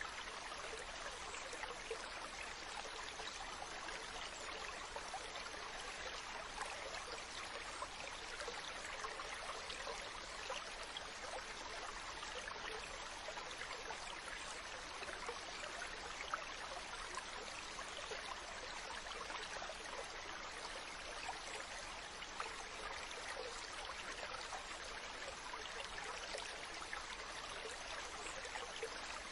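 Mountain stream running over rocks: a steady rush of water with fine splashing and burbling, unchanging throughout.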